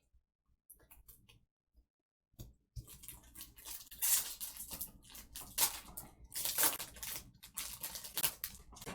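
A few faint ticks, then from about two seconds in the crackle and tearing of a foil trading-card pack wrapper being ripped open and crumpled.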